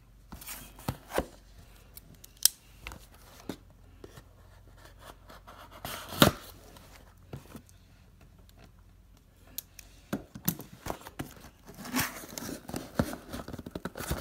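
A taped cardboard shipping box being opened: packing tape cut and torn, with scattered clicks, scrapes and knocks as the box is handled. There is one louder knock about six seconds in, and the handling gets busier near the end.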